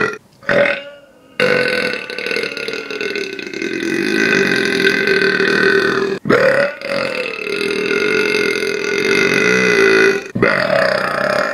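Long, drawn-out human burps: a short one, then one held for about five seconds, a second of about four seconds, and a third starting near the end, each at a fairly steady pitch.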